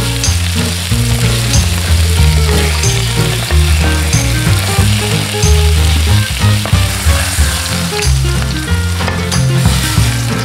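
Duck breasts sizzling and spitting in a frying pan while they are turned with tongs. Background music with a stepping bass line and a light, regular tick runs underneath and carries the loudest low notes.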